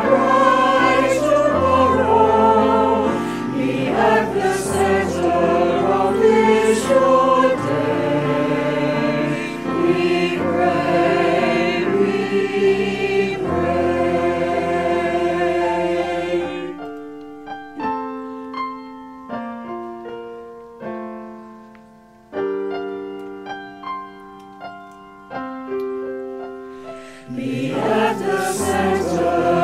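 Mixed choir singing a slow hymn-like song in harmony, with piano accompaniment. About halfway through the voices drop out for roughly ten seconds of solo piano, single notes and chords dying away, and the choir comes back in near the end.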